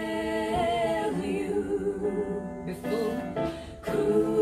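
Song from the Virgin Voyages safety video playing on the cabin TV: a woman singing held notes, with backing voices and music.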